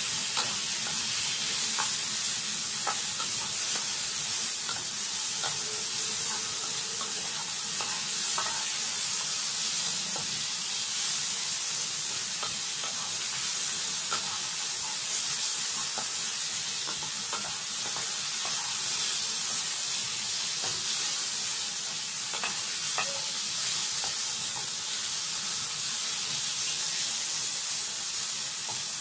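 Bottle gourd strips and shrimp sizzling steadily in oil in a nonstick pan, with occasional light taps and scrapes of a wooden spatula stirring them.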